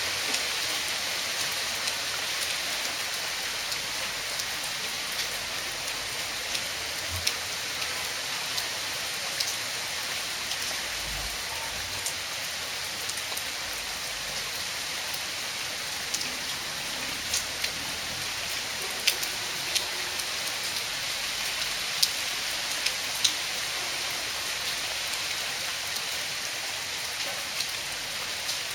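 Heavy rain falling steadily, a constant hiss with sharp taps of single drops striking close by now and then.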